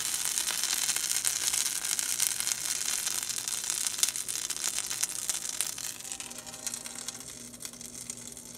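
A pancake sizzling in butter in a nonstick frying pan: a steady crackling hiss that grows fainter near the end.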